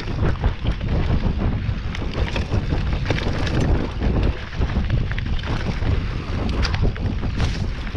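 Wind buffeting the microphone on a fast mountain bike descent, over the rumble of knobby tyres on a dusty dirt trail, with frequent small knocks and rattles from the bike over bumps.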